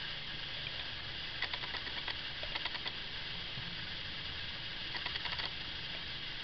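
Clusters of small rapid clicks over a steady hiss, coming three times: about a second and a half in, near the middle, and toward the end.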